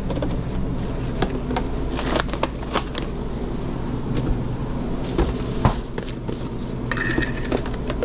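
Steady hum of food-truck kitchen equipment, with scattered clicks and knocks of jars, plastic containers and tongs being handled at the prep counter.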